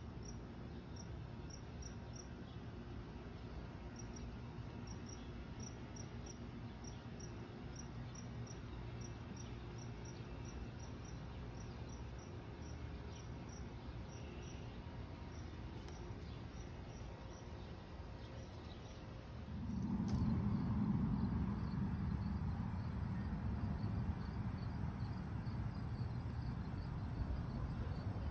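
A cricket chirping in short, regular high chirps, two or three a second, over low outdoor background noise. About twenty seconds in, a louder low rushing noise comes in and stays, with the chirping fainter beneath it.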